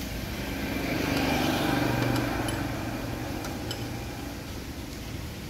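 A passing motor vehicle's engine hum swells to its loudest about two seconds in, then fades away. Faint clicks of a wrench on the fuel injection lines.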